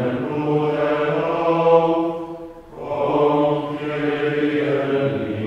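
Male voices chanting plainchant of the Tenebrae office on a steady reciting pitch, in two phrases with a brief breath about two and a half seconds in.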